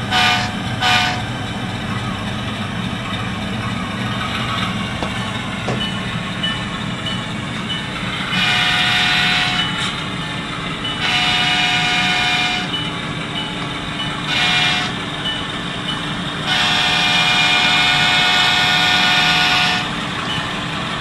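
Sound decoder of an HO-scale GE C44-9W locomotive model, playing a GE FDL-16 diesel prime mover running steadily through its small on-board speaker. Short horn toots near the start close out the three-toot back-up signal. From about 8 to 20 seconds in come four horn blasts, long, long, short, long: the grade-crossing signal.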